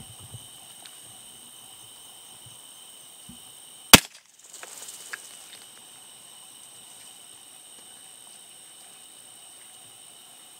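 A single sharp gunshot about four seconds in, the loudest sound by far, fired at close range in open ground.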